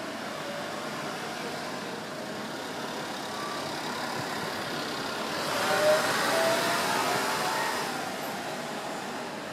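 A road vehicle passing, swelling about five and a half seconds in, loudest around six seconds, and fading by eight, over a steady street background.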